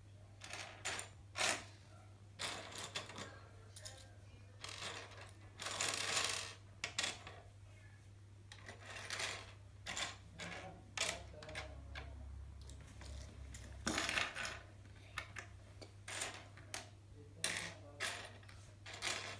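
Plastic K'nex pieces clicking and clattering as they are handled and fitted together, in irregular clusters of sharp clicks, over a steady low hum.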